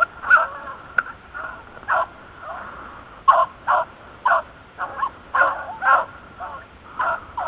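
Hunting beagles barking and yelping in short, repeated cries, about one or two a second.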